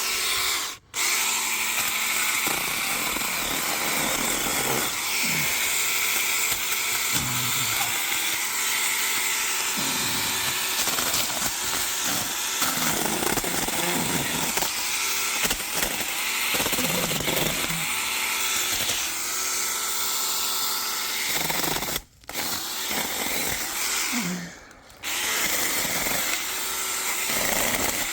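A handheld power cutting tool running steadily as it trims branches and dead palm growth, stopping briefly about a second in and twice near the end.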